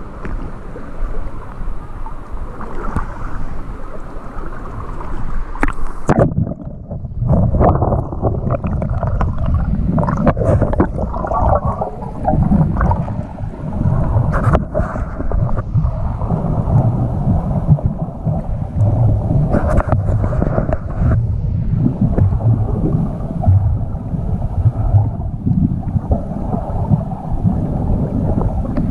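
Water sloshing and wind buffeting a waterproof action camera at the lake surface, then, about six seconds in, the camera goes under and the sound turns to a muffled, low underwater rumble of water moving against the housing, with occasional knocks.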